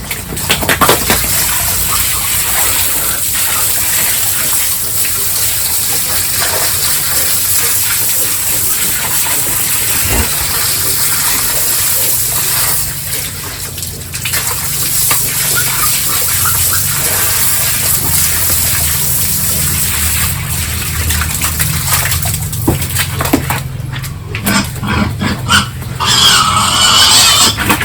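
Steady rush of running water, with pigs grunting; a louder, high pig squeal near the end.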